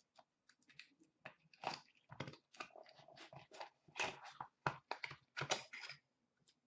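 Hands opening a small white cardboard pack box and handling the trading cards inside: an irregular run of short crackles, taps and scrapes, busiest from about a second and a half in.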